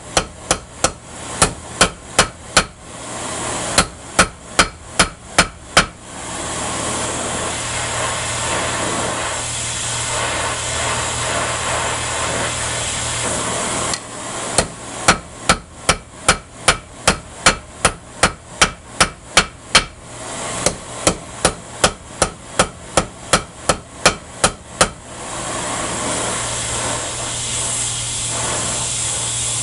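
Heavy hammer forging hot bronze on a steel anvil: sharp ringing blows, about three or four a second, in runs. Between the runs, about six seconds in and again near the end, there is a steady hiss instead of blows.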